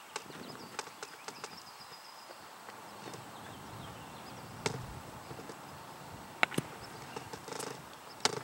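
Sharp cracks of baseball infield practice: a bat hitting the ball and the ball smacking into a leather glove. The loudest comes a little over halfway through, two come close together later, and one comes near the end, with lighter clicks between.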